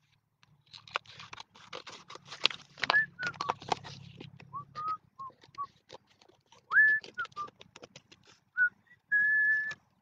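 A person whistling a few short notes of a tune, some sliding up, ending on one longer held note. Under it are dry crackles and clicks of stiff birch bark being handled and cut, thickest in the first half.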